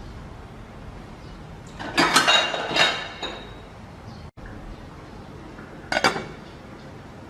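Kitchenware clattering and clinking: a run of knocks with a brief ringing about two seconds in, then a shorter clatter near the end.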